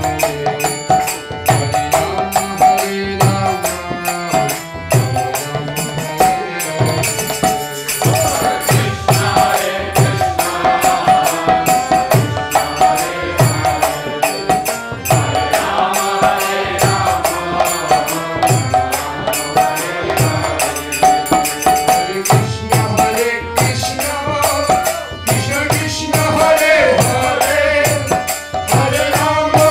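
Devotional kirtan: a lead singer and a group singing a chant over sustained harmonium chords, with a mridanga drum keeping a steady rhythm of deep strokes that slide down in pitch.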